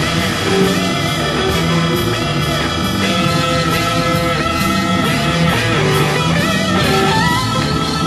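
Psychedelic rock instrumental: electric bass, drums and keyboards playing together over a repeating bass figure, with gliding high notes in the second half.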